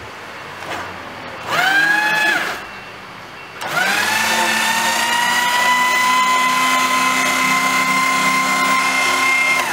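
GEMET 60 S strip-cut paper shredder motor running as paper is fed in: a short run of about a second, then it starts again about four seconds in, its whine rising as it spins up, and runs steadily while shredding the sheet before cutting off at the end.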